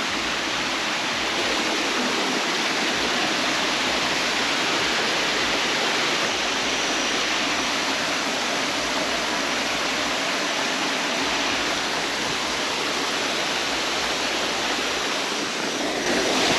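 Steady rush of falling water from a waterfall cascading over rocks, close by.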